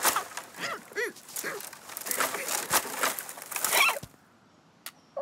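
Cartoon character's short, wordless squawking cries mixed with rustling and clattering sound effects, stopping about four seconds in.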